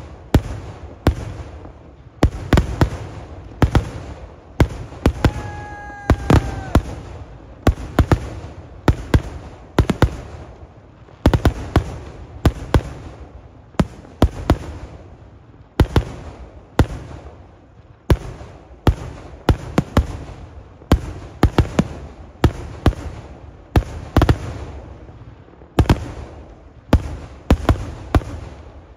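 Fireworks display: aerial shells going off in an unbroken, irregular string of loud sharp bangs, one to three a second, each with an echoing tail. A short falling whistle sounds about six seconds in.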